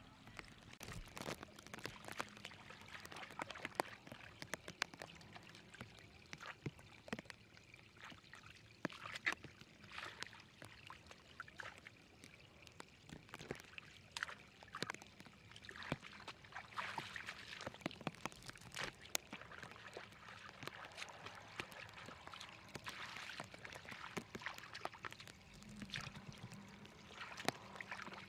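Hands splashing and scooping in shallow, muddy, flowing water, irregular splashes over the trickle of the current.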